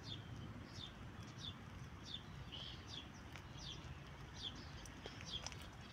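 A small bird calling repeatedly: a quick series of short, high chirps that each fall in pitch, over faint low background noise.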